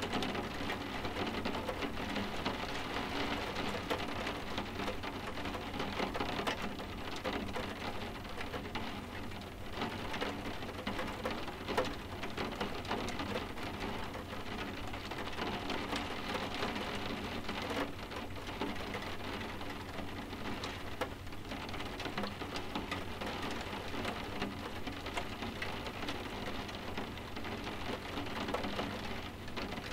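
Steady rain softly tapping on window glass, with many small drop taps over an even hiss.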